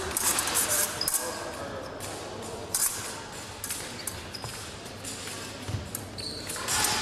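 Épée blades clashing in clusters of sharp metallic clicks, in the first second and again near the end, with single clicks between. Fencers' feet thud on the piste.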